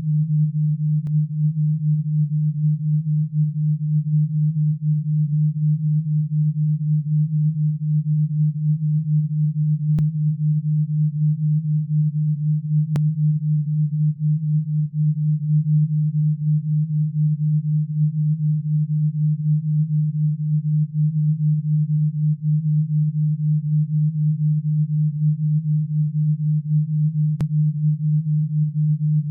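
A low, steady pure tone of an alpha-wave binaural beat, meant to pulse at 8 to 12 Hz, with its loudness flickering rapidly and evenly.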